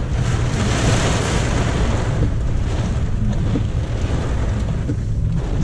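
Heavy storm rain and wind beating on a car's roof and windshield, heard inside the moving car, over a steady low rumble from the car. The rain hiss is strongest in the first couple of seconds and eases toward the end.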